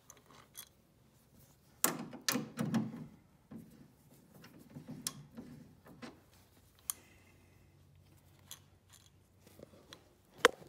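Irregular metallic clicks and clanks of hand tools working the front wheel bolt of a Troy-Bilt walk-behind lawn mower, with a dense cluster about two seconds in and a single sharp click near the end.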